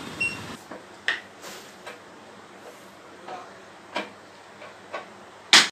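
A single short beep from the Sunflame kitchen chimney's touch control panel as a button is pressed, and the extractor fan's running noise cuts off about half a second in. Then come scattered short clicks and knocks, with a loud sharp knock near the end.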